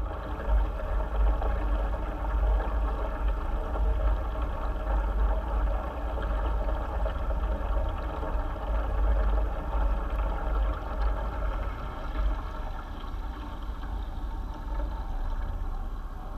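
Steady low mechanical hum with a rushing hiss, picked up underwater in an aquarium tank, typical of the tank's water circulation pump. It eases a little in the last few seconds.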